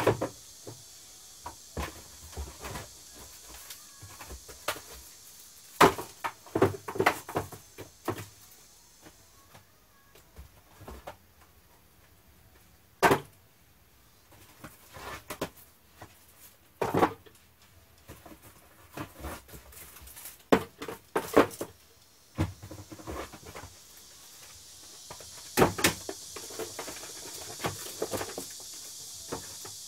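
Plastic cassette tape cases clacking and knocking as they are lifted out of a cardboard box and stacked onto wooden shelves. The clicks come in irregular clusters with short quiet gaps between.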